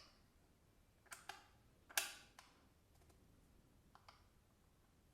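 Several sharp clicks and taps of small metal parts being handled: the bits and aluminium case of a Xiaomi Mi precision screwdriver kit. There are about seven, with the loudest about two seconds in.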